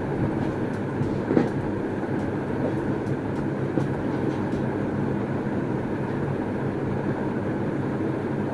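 Steady machine hum with a low drone running throughout, like a room fan or air conditioner. A light metal clink comes about a second and a half in as the titanium stove's panels are handled.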